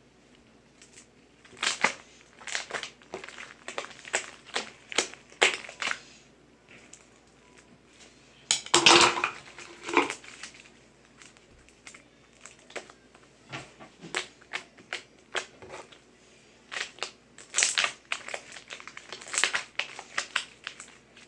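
Slime being squeezed and poked by hand, giving irregular sharp clicks and crackling pops, with a louder, denser run of crackling about halfway through.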